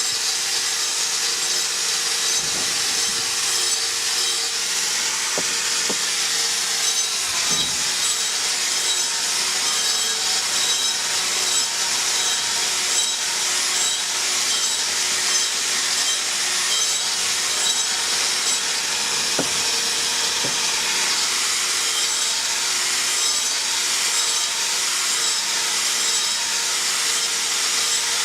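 Angle grinder with an abrasive cup wheel or sanding disc grinding a clay brick, shaping its face round: a continuous high hiss over a steady motor tone.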